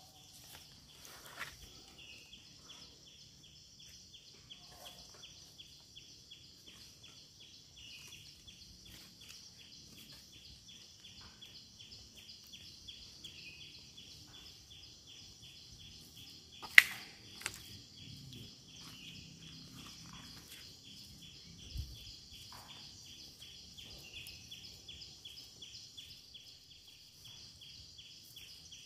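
A steady, high-pitched insect chorus pulsing rapidly throughout, with scattered soft clicks and crackles. A single sharp snap a little past halfway is the loudest sound.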